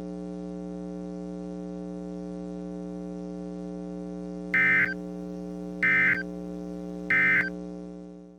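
A steady electrical hum made of several held tones, and then, about four and a half seconds in, three short bursts of EAS (SAME) data tones about 1.3 seconds apart: the end-of-message code that closes an Emergency Alert System warning. The hum then fades and cuts off abruptly at the end.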